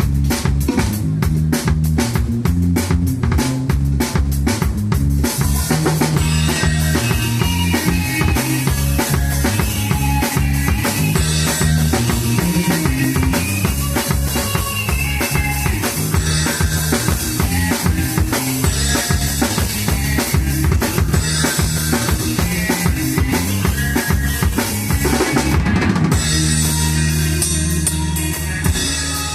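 Rock trio of drum kit, electric bass and electric guitar playing an instrumental rock song, with the drums driving it on kick, snare and cymbals under a busy bass line.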